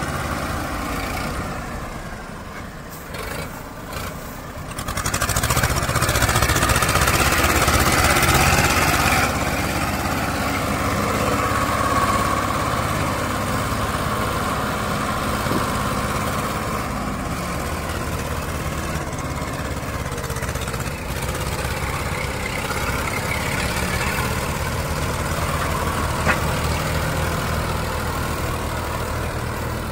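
Sonalika DI-740 tractor's diesel engine straining under load as it hauls an overloaded trolley stuck in mud. The engine grows louder about five seconds in and holds there for a few seconds, then settles into a steady labouring run.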